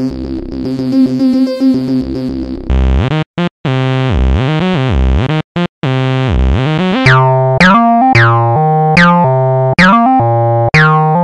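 Electronic bass music made on synthesizers. A dense synth passage gives way to heavy sustained bass notes that swoop down in pitch, broken by brief stutter cuts. About seven seconds in, a run of repeated synth stabs begins, each bright at the attack and fading quickly.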